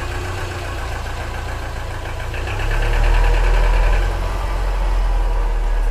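Subaru flat-four engine idling steadily, with a deeper low rumble swelling up about two and a half seconds in and holding.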